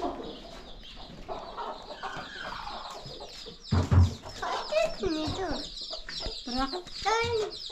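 Chickens clucking, a run of short calls, with a dull thump about four seconds in.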